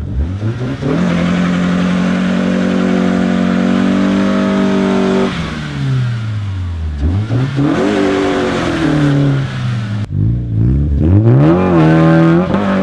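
A car engine revving hard: the pitch climbs, holds high for a few seconds, drops away, then climbs again twice.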